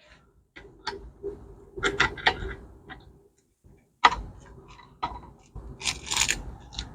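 Irregular clicks and knocks of hard objects being handled, several in quick succession about two seconds in and again from about four seconds, over a faint steady hum.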